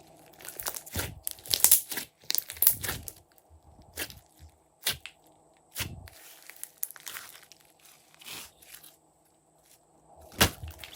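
Slime being squished and folded by hand, making irregular sticky pops and crackles, with a brief lull about nine seconds in and a loud pop near the end.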